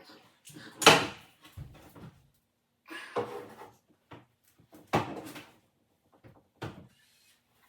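Wooden kitchen cabinets knocking and banging as they are pulled apart, in four separate bangs, the first about a second in the loudest.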